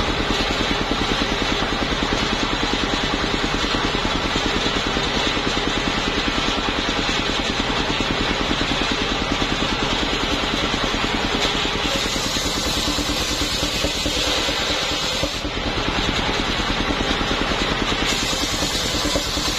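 Engine of a homemade truck-mounted circular sawmill running steadily with a fast, even pulse, driving the large saw blade as waru-wood planks are fed through it.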